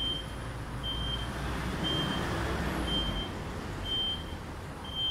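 Aftermarket power tailgate on a Mazda CX-5 closing: its warning beeper gives a short high beep about once a second over the low hum of the tailgate's drive motor, which stops about two-thirds of the way through.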